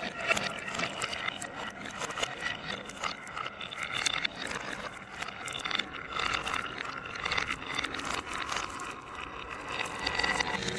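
Marbles rolling and clattering down a wooden Haba marble run: a continuous rolling rattle broken by many quick clicks as they drop and knock along the track.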